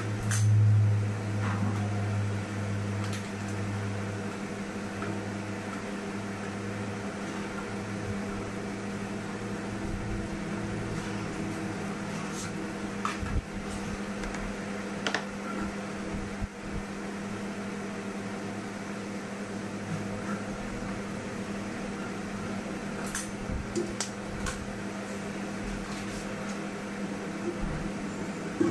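Steady mains-powered machine hum, with a low drone that is louder for the first few seconds, and a few faint clicks and taps scattered through.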